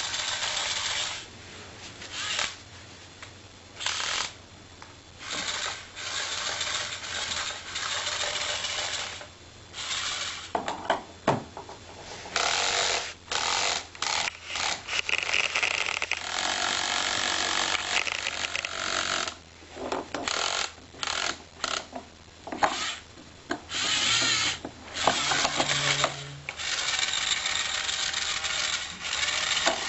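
Small electric drill or screwdriver running in repeated bursts of varying length, started and stopped over and over, with a few clicks between runs.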